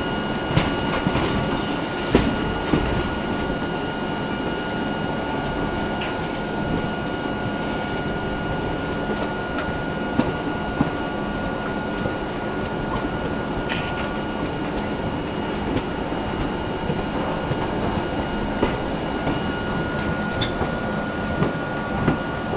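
Passenger express coach rolling slowly into a station: a steady rumble with a few sharp knocks and clanks.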